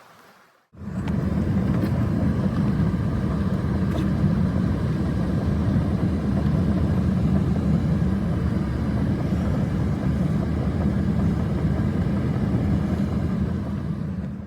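Strong snowstorm wind blowing steadily, a heavy low rumble buffeting the microphone, cutting in suddenly about a second in.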